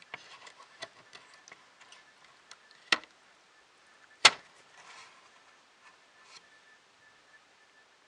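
Light clicks and handling noises from small circuit boards being moved about on a work surface, with two sharp knocks about three and four seconds in.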